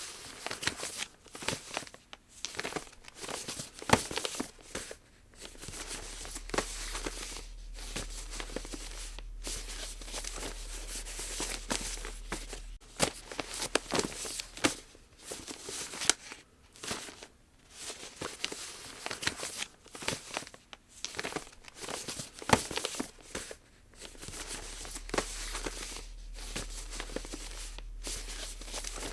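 Sheet of origami paper being handled and folded by hand: irregular crisp rustling and crinkling, with short sharp strokes as folds are pressed down.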